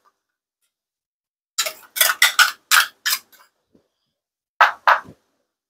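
A metal ladle clicking and scraping against a wire-mesh strainer as fermented rice (mẻ) is pressed through it into the broth. It starts about a second and a half in, with a quick run of sharp clicks for about two seconds, then two more clicks near the end.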